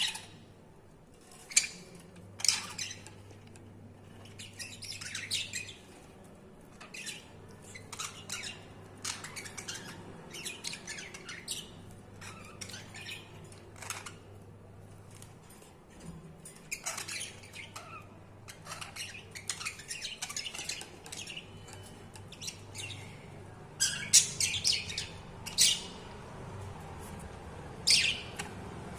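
Budgerigars chirping and squawking in short, scattered calls, with a louder flurry of calls about three-quarters of the way through.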